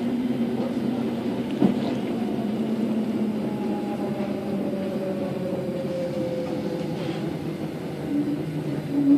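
Inside a Thameslink electric train slowing into a station: steady running noise with a motor whine that falls slowly in pitch as the train brakes. There is a single knock about two seconds in, and a pulsing low tone starts near the end.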